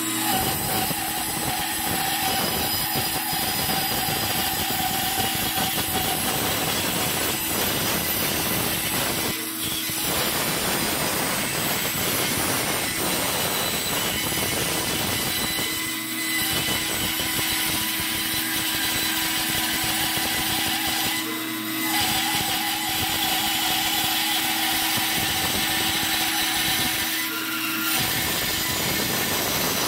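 Bandsaw blade cutting through a thick wooden bowl blank as it is turned into the blade, a steady sawing noise over the machine's hum. The cutting sound dips briefly about four times.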